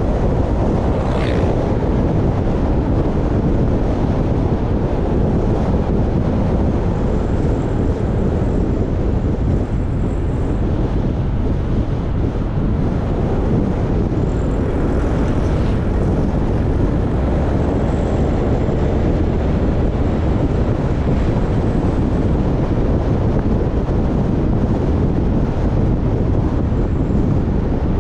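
Steady wind rush buffeting the microphone of a camera riding along a paved road, a dense low roar that holds the same level throughout.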